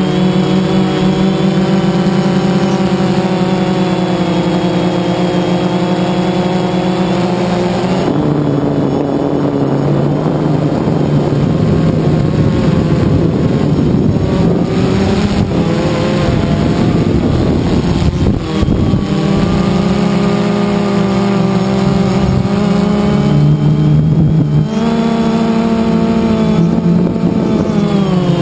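DJI Phantom 2 quadcopter's four motors and propellers humming steadily, heard close up through the GoPro mounted on the drone, the pitch drifting slightly as it flies. For about ten seconds in the middle the steady hum breaks into a rougher, wavering rush, then settles back.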